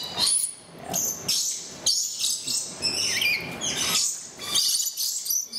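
Lories calling at close range: a run of shrill screeches and chatter, with a short gliding whistle about three seconds in.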